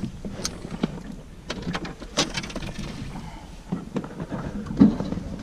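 Handling noises in a small fishing boat: scattered sharp clicks and knocks from the lip-grip, lure and hull around a landed golden dorado, with a louder knock near the end, over a low rumble.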